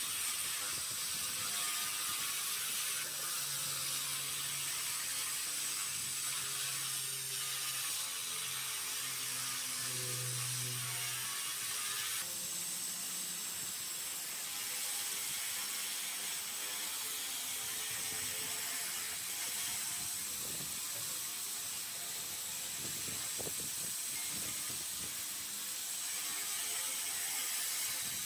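Handheld 300 W pulsed laser cleaner working on rusty metal: a steady, high-pitched crackle as the beam ablates the rust.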